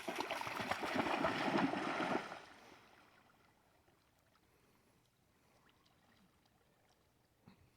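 Water splashing and sloshing for about two seconds, then dying away to a faint background.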